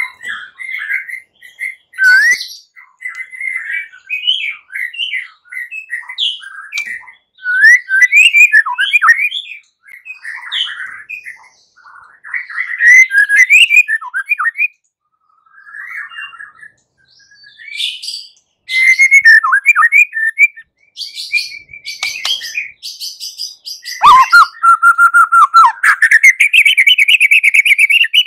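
White-rumped shama (murai batu) singing: a rapid run of varied whistles, chirps and short trills, with a brief pause about halfway. Near the end comes a long, fast trill that steps up in pitch.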